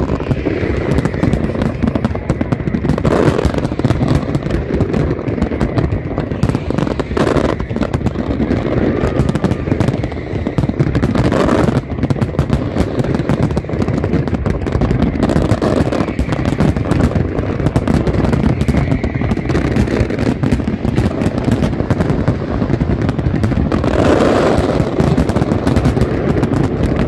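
Aerial firework shells bursting continuously, many overlapping bangs with the crackle of their stars over a steady rumble, with no pause.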